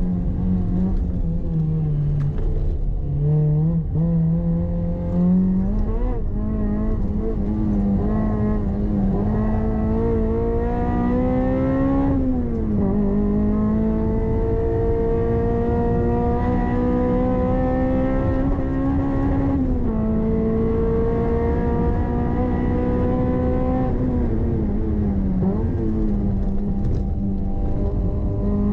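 Toyota MR-S's swapped-in 2ZZ-GE 1.8-litre four-cylinder engine pulling hard on track, heard from inside the cabin. The note climbs steadily in each gear and drops sharply at the gear changes, three times.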